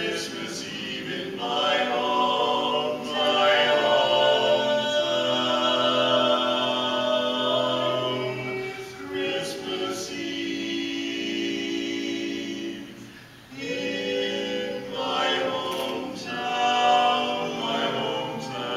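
Men singing barbershop-style a cappella, holding close-harmony chords in long phrases, with a brief pause for breath about two-thirds of the way through.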